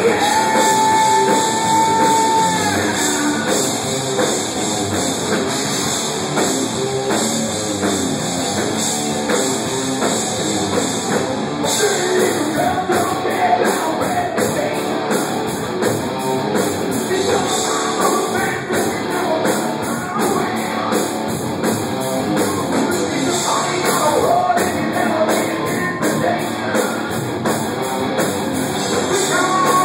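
Hard rock band playing live, with electric guitars, a drum kit with cymbals and a singer. A single high note is held for about two seconds near the start.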